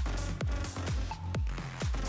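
Background electronic dance music with a steady, heavy beat of about two strokes a second over deep bass.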